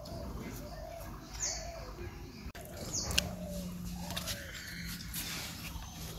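Faint background bird calls, a string of short repeated notes through the first half, with a single sharp click about three seconds in.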